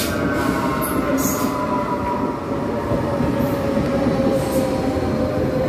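Renfe electric commuter train pulling in alongside the platform, wheels rumbling under a steady whine in several tones that slowly drops in pitch as the train slows.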